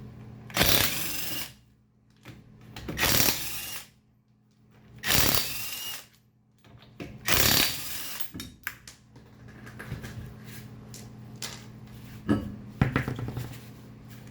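Impact wrench with a 19mm socket spinning off lug nuts: four loud bursts of about a second each, one per nut, followed by lighter clicks and knocks.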